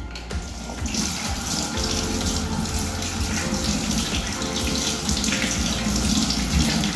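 Water running from a sink tap into a steel basin and over hands being rinsed under it. The flow comes on about a second in and then runs steadily.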